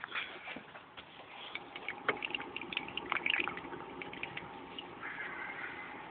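Water in a goldfish aquarium trickling and bubbling, with a scatter of small crackles and clicks that are thickest a couple of seconds in.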